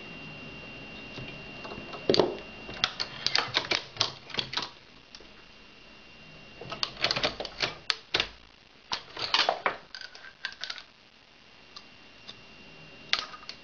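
Hornady 366 Auto progressive shotshell press being cycled while reloading shotgun slugs: bursts of metallic clicking and clatter as the handle is worked and the shells index, in three clusters with a single click near the end.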